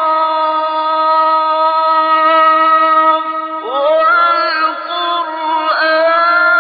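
A male Quran reciter's voice in slow melodic chanting. He holds one long steady note, then starts fresh phrases that slide upward in pitch about three and a half seconds in and again near the end.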